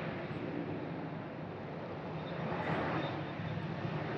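Distant aircraft engine noise across the airfield: a steady low rumble that grows a little louder about two and a half seconds in.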